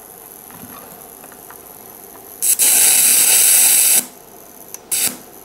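Electric welding arc from a homemade single-transistor welding inverter, struck for about a second and a half as a loud, steady hiss that cuts off sharply, then a brief second strike near the end.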